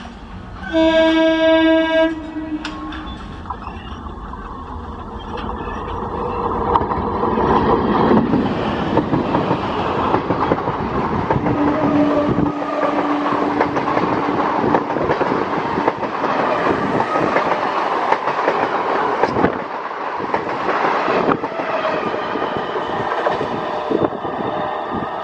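Electric multiple-unit local train sounding one loud air-horn blast about a second in, lasting a second and a half. It then runs past close by with rising wheel-on-rail noise and a clickety-clack of wheels over rail joints. A steady lower tone lasts about three seconds midway.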